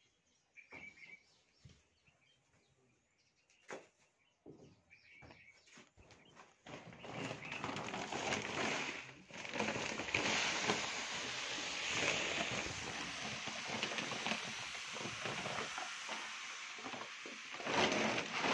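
Dry grain pouring from a sack onto a heap on a cloth: a dense, steady hissing rattle that starts about seven seconds in, with a short break near nine seconds. Before it, a few faint clicks and a couple of short bird chirps.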